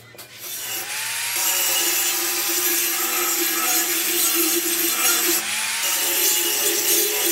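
Angle grinder starting up about a second in and grinding the steel of a rusty rake head with a loud steady whine. It eases off briefly a little after five seconds in, then bites into the metal again.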